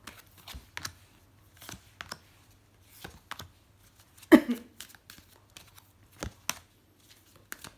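Oracle cards being shuffled and handled: scattered soft flicks and clicks of card against card, with one louder slap about halfway through as cards are laid down on the spread.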